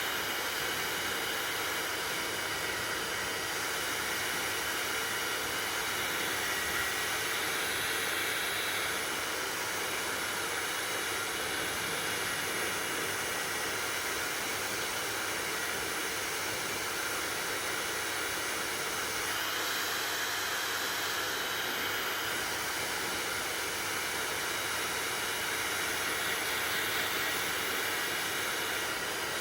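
Hair dryer running steadily: a constant airy rush of noise with a few faint steady tones in it.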